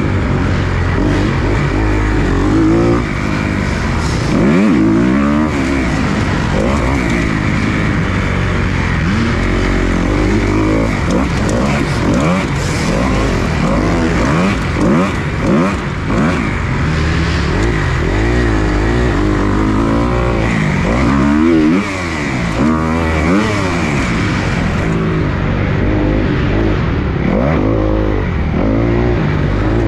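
2020 Kawasaki KX250 dirt bike's four-stroke single-cylinder engine heard from an onboard camera, revving up and down over and over as the throttle is opened and closed and the gears are changed.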